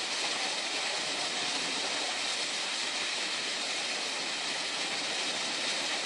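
Multnomah Falls, a tall two-tiered waterfall, rushing steadily: an even, unbroken hiss of falling water.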